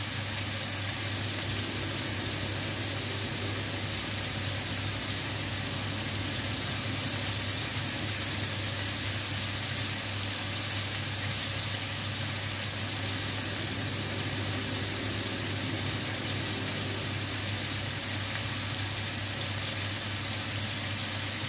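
Marinated chicken pieces frying in oil in a wok, a steady sizzle, with a constant low hum underneath.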